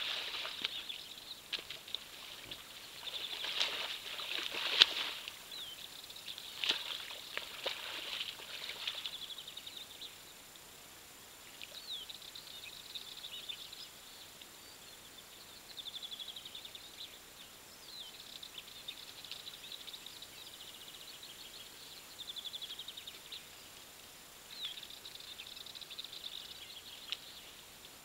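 Muddy water splashing and sloshing in bursts for the first several seconds as a red deer wallows in a small pool. After that, small birds sing short, fast, high-pitched trills against a quiet outdoor background.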